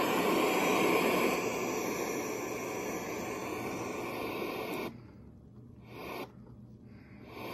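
Static hiss of white noise from the built-in TV of a GE Road Show boombox, tuned with no broadcast signal. It cuts off about five seconds in, then comes back in two short bursts.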